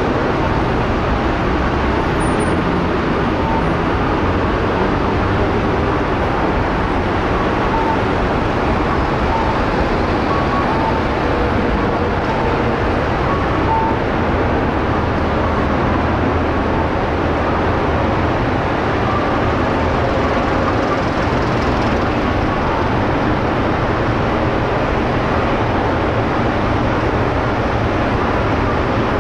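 City street ambience: steady traffic noise with a dense background din, dotted with faint brief tones here and there.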